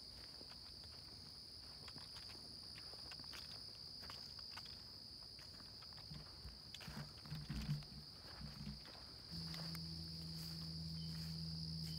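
Steady high-pitched insect chorus, with a few footsteps in the undergrowth past the middle. A steady low hum sets in about nine seconds in.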